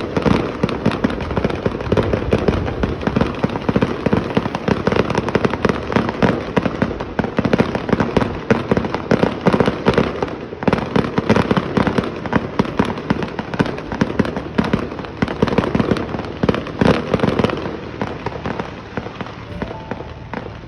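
Fireworks grand finale: a dense, continuous barrage of shell bursts and crackling with no let-up, thinning out and getting quieter in the last few seconds.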